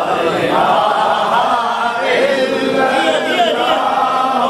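Men's voices chanting together, unaccompanied, in an Urdu naat: several voices overlap as if the gathering joins the reciter in the refrain.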